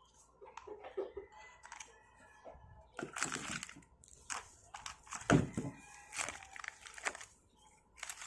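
Plastic packaging crinkling and rustling while parts of an impact wrench kit are handled, with scattered clicks and light knocks.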